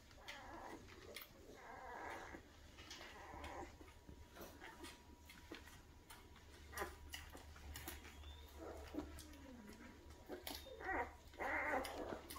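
Newborn Great Dane puppies whimpering and squeaking in short cries, with a low falling cry about nine seconds in and louder cries near the end.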